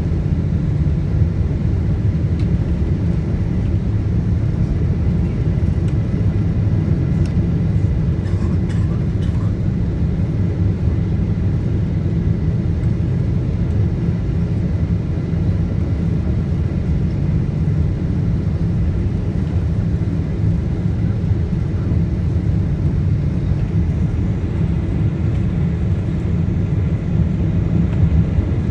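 Steady low rumble inside the cabin of a Boeing 777-200ER on its landing approach, heard beside its GE90 engine: engine and airflow noise, with a faint steady high whine above it.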